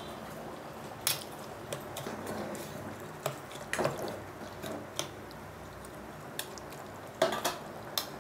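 Chopped onion being stirred into yogurt in a glass bowl for onion raita: wet squishing with irregular sharp clicks of a spoon against the bowl, the loudest about a second in and again near the end.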